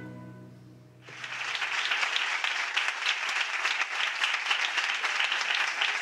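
The last chord of a string-and-harpsichord ensemble fades away, and about a second in an audience breaks into steady applause.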